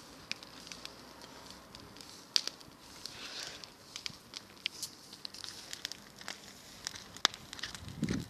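Burning pile of dry grass and straw crackling, with irregular sharp pops over a faint hiss, the loudest about two seconds in and again near the end. A short low rumble comes just before the end.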